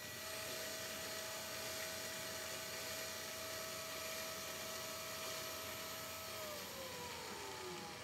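Small motor in a Red Sea ReefBot running steadily with a whine over a hiss during the RODI water flush of its needle-cleaning cycle. Its pitch falls from about six and a half seconds in as it slows.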